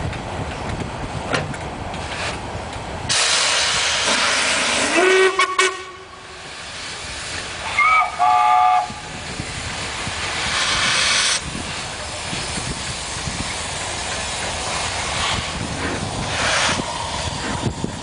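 Steam locomotive 6233 Duchess of Sutherland, an LMS Princess Coronation Pacific, moving slowly with loud bursts of steam hiss. A whistle sounds about five seconds in, sliding up in pitch as it opens, and a short whistle of two close notes follows about three seconds later.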